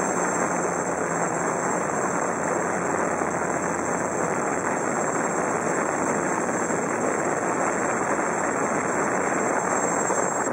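GAUI QuadFlyer 330X quadcopter's electric motors and propellers running steadily, heard from its onboard camera as a wide hiss with a high whine over it. Near the end it settles into the grass and the sound cuts off suddenly as the motors stop.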